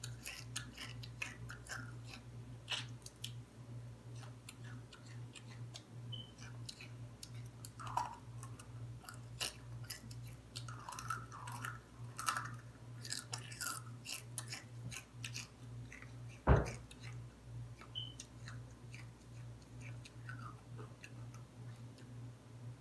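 A girl chewing a mouthful of egg white close to the microphone: many small wet smacking and clicking mouth sounds, with one sharp click about two-thirds of the way through. A steady low hum runs underneath.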